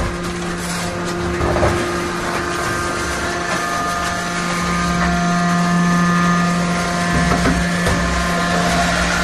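Hydraulic scrap-metal baler running: a steady low machine hum, with higher whining tones from about three seconds in.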